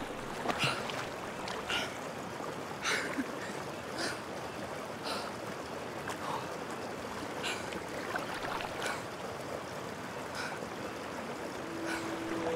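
Water splashing and sloshing as a swimmer strokes through a river with her head above the surface, with a sharp splash roughly once a second over a steady wash of moving water.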